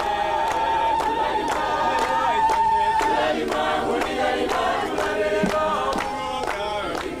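A choir singing in harmony over a steady percussive beat of about two and a half strokes a second, one high voice holding a long note through the first three seconds. The song fades down near the end.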